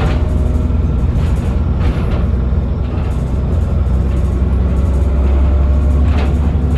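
Transbus Trident bus's Cummins ISBe diesel engine running under way: a steady low drone with a faint turbo whine above it, slightly rising near the end, and a few brief rattles.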